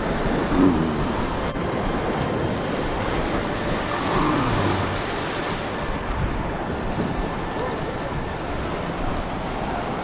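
Sea surf breaking and washing over coastal rocks, a steady rushing wash.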